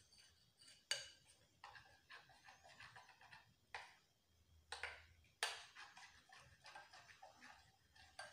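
A spoon stirring thick besan batter in a glass bowl, with soft scraping and a few sharp clinks against the glass.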